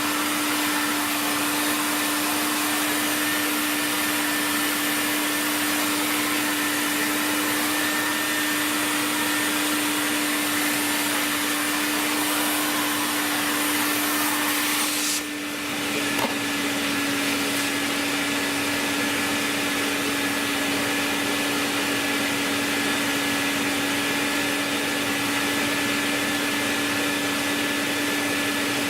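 A steady motor whine with an airflow hiss, like a vacuum-type machine or power tool running continuously. About halfway through it dips briefly, there is a click, and then it runs on at a slightly higher pitch.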